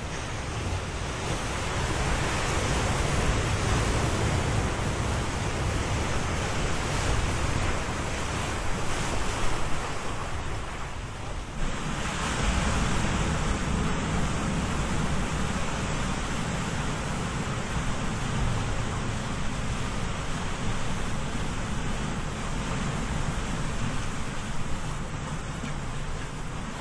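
Ocean surf: waves breaking and washing ashore in a continuous rush that swells and ebbs, with a brief lull about eleven seconds in before the next wave breaks.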